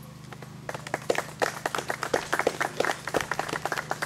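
A small audience applauding, a scatter of separate hand claps building up about a second in and thinning out near the end.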